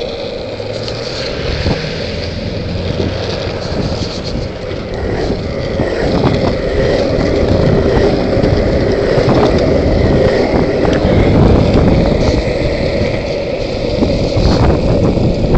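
Longboard wheels rolling on asphalt: a steady rumble that gets louder from about six seconds in.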